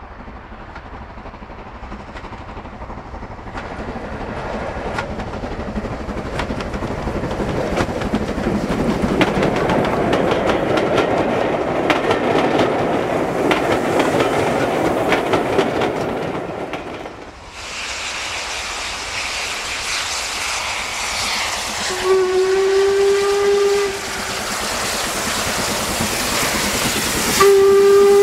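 LMS Stanier 8F 2-8-0 steam locomotive hauling a passenger train past. Its exhaust and the coaches' rumble and clatter over rail joints grow louder as it passes, then break off at a cut. In the second shot the locomotive gives a short steam-whistle blast about two-thirds of the way in, and a second blast starts near the end.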